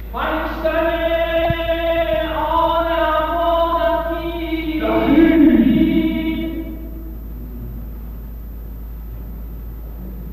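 Traditional zurkhaneh chanting: a voice sings long held notes, stepping to a new pitch twice, and stops about six and a half seconds in.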